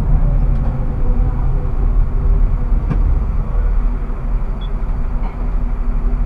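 Steady low rumble of vehicle noise in a tram's driver's cab as the tram rolls up close behind a city bus and stops, with one sharp click about three seconds in.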